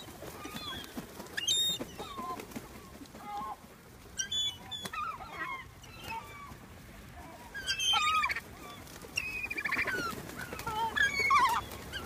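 A flock of gulls calling in short, scattered cries, many birds at once, the loudest burst about eight seconds in.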